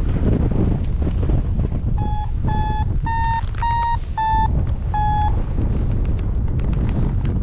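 Paragliding variometer beeping six times in short evenly spaced tones. The pitch rises a little and then falls back, the climb tone that signals the glider is rising in lift. Wind rushes over the microphone throughout.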